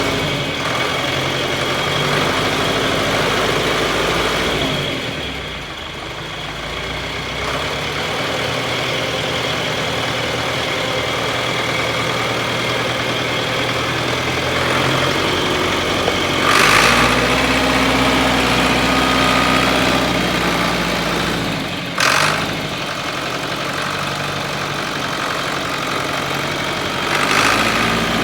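Tractor engine idling; its speed drops and rises a few times. Short bursts of noise come about two-thirds of the way through and again near the end.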